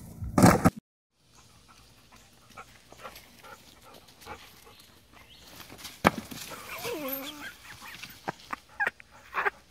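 Scattered clicks and knocks, with a sharp knock about six seconds in, then a short wavering animal call.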